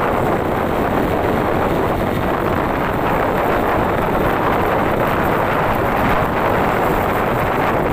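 Steady rushing wind noise on the microphone while riding a motorcycle, with road noise beneath it and no pitch changes or breaks.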